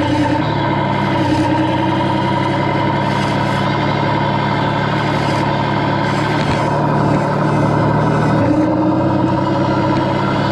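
Simulated diesel engine sound from the sound module of a 1:8 scale RC articulated dump truck, running steadily as the truck drives, with the engine note dropping about eight seconds in.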